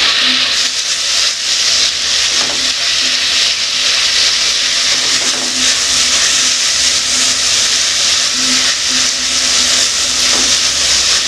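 Diced potato, onion, capsicum and tomato sizzling steadily in hot oil in a metal pot while being stirred with a spatula, the vegetables briefly sautéing on high heat.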